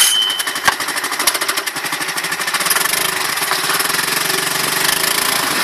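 Honda BF2 2 hp air-cooled single-cylinder four-stroke outboard motor running steadily in a water test barrel, its propeller churning the water.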